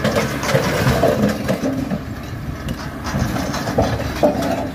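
Compact tractor engine running under load as its front loader pushes into a collapsing old wooden building, with knocks, creaks and crashes of breaking boards and falling bricks over it.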